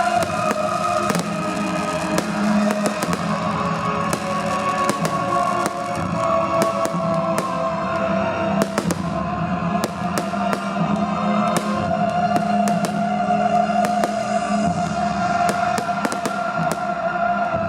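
Fireworks display: many sharp firework bangs and crackles over music with long held notes played over loudspeakers.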